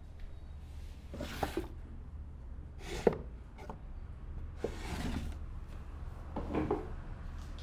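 Hands working over a person's scalp and hair in an Indian head massage: a handful of short rubbing strokes about every second and a half, one with a sharp smack about three seconds in.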